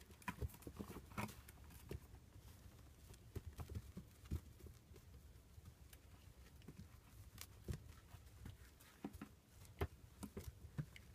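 Faint, irregular taps, knocks and scrabbling of rough collie puppies' paws and claws on wire mesh and a cardboard tube as they play, with a few sharper knocks near the end, over a faint low hum.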